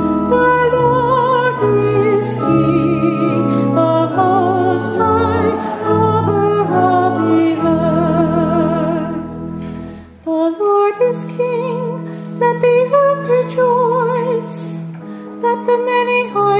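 Sung responsorial psalm: a cantor singing with a wide vibrato over sustained organ chords. The music dips briefly about ten seconds in, then a new sung phrase begins.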